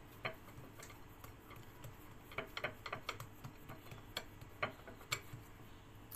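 Light, irregular clicks and taps of fingers pressing and spreading a round of dough on a plate, several close together around the middle.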